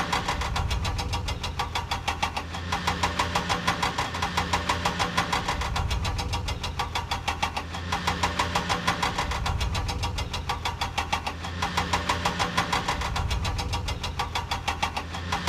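Engine sound effect: a rapid, steady knocking rattle like a diesel idling, swelling and easing in a cycle that repeats every two to three seconds.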